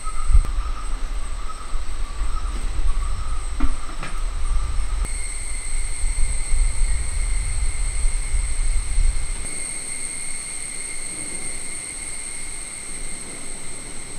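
Outdoor ambience: insects drone steadily in high, even tones, over a low rumble. About five seconds in, the drone jumps to a higher pitch, and the rumble fades out near the end.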